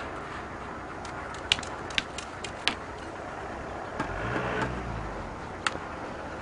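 Sharp clicks and knocks of broken concrete and brick rubble being stepped on or shifted: a quick run of them, then one more near the end. A brief low drone about four seconds in.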